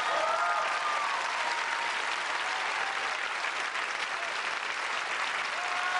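Theatre audience applauding steadily, with a few voices calling out over the clapping near the start and again near the end.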